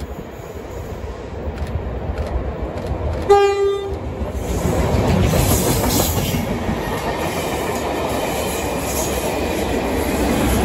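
A diesel-hauled test train with a Class 37 locomotive sounds one short horn blast as it approaches. It then passes close by, its rumble and wheel noise growing louder and staying loud as the coaches and the Class 37 go past.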